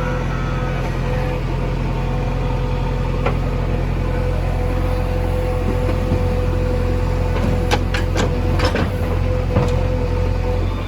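Heavy diesel machinery engine running steadily, with several sharp knocks about three-quarters of the way through.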